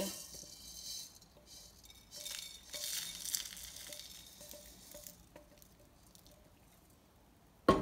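Dry-roasted whole spices (coriander, cumin and fennel seeds, cloves, cinnamon sticks) pouring from a non-stick wok onto a ceramic plate: a pattering, hissing rattle of seeds in two pours with small ticks and clinks. A sharp knock comes near the end.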